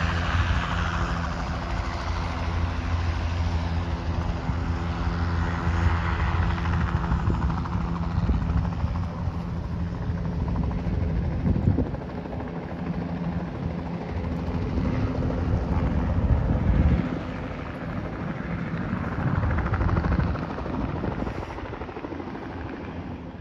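A steady engine drone with a low hum, swelling and ebbing in loudness, that fades out about two-thirds of the way through, leaving a noisy outdoor rush.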